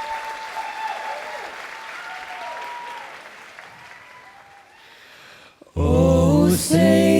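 Audience applause with a few cheering voices, fading away over several seconds. About six seconds in, an a cappella vocal group comes in loudly on a held chord with a strong bass voice.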